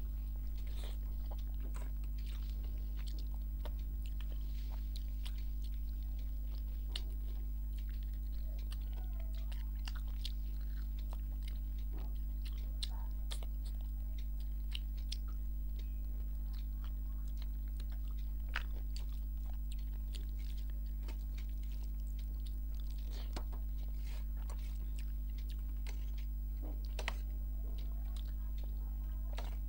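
A person eating rice and mutton curry by hand: chewing and biting, with many short, sharp mouth clicks, over a steady low hum.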